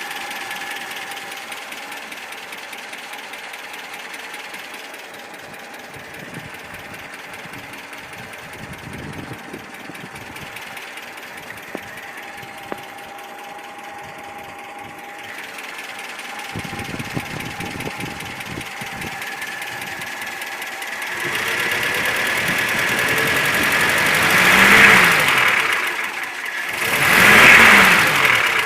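ZMZ-402 inline-four petrol engine idling steadily, then blipped twice near the end, the revs rising and falling each time. This engine's knock comes from play between the piston pins and connecting rods in all four cylinders.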